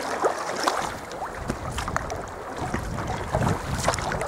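Sea kayak being paddled: water splashing and dripping off the paddle in irregular small splashes, with wind buffeting the microphone.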